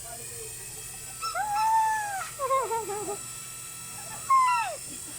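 Animal calls: one long call that rises and falls, a quick run of short falling notes, then a louder single falling call near the end.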